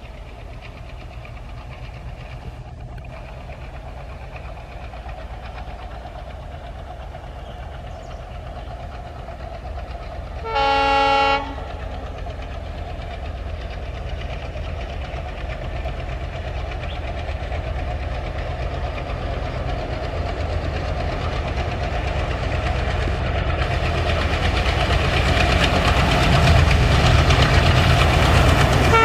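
ALCO WDM-3D diesel locomotive approaching at speed, its engine rumble growing steadily louder as it nears. It gives one horn blast of about a second, about ten and a half seconds in.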